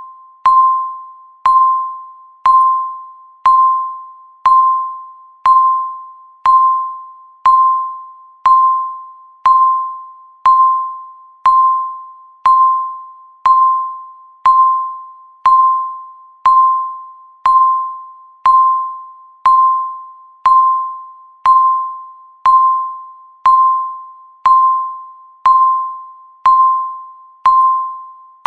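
Countdown timer beeping once a second: a single electronic tone at one pitch, each beep starting sharply and fading away before the next.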